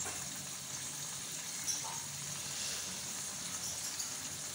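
Potato slices with tomato sizzling steadily in oil and a little added water in a pan, simmering as they soften. One light knock about two seconds in.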